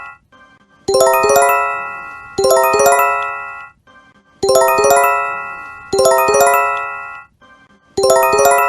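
Japanese emergency alert chime for an earthquake or tsunami warning: a quick cluster of ringing chime notes that sounds twice in a row. The pair repeats about every three and a half seconds.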